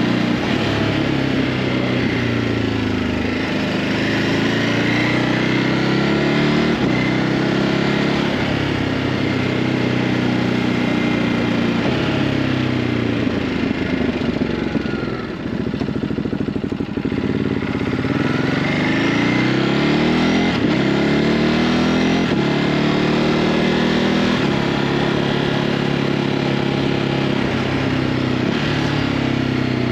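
Ducati Hypermotard 950's 937 cc L-twin engine on its stock exhaust, riding. It pulls up through the gears several times, each climb in pitch cut off by a shift, and eases off briefly about halfway before picking up again.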